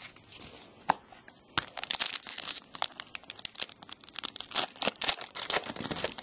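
A trading card pack's wrapper being torn open and crinkled by hand, a dense crackling that thickens from about a second and a half in.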